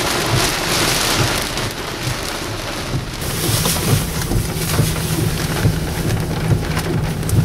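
Heavy rain beating on a car's roof and windshield, heard from inside the car, with scattered drops ticking on the glass. A steady low hum joins about three seconds in.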